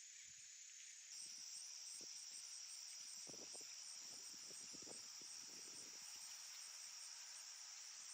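Crickets trilling in a steady, faint, high-pitched drone that gets a little louder about a second in, with soft footsteps on the road beneath it.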